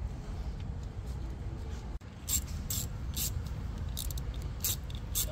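Ratchet wrench being worked on a fitting, its pawl clicking in short sharp bursts about twice a second from about two seconds in, over a low rumble.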